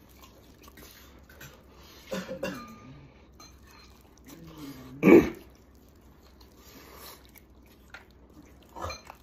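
Someone eating braised lamb leg with a full mouth: chewing and letting out short hummed, closed-mouth vocal sounds, with one loud sudden burst about five seconds in and a shorter one near the end.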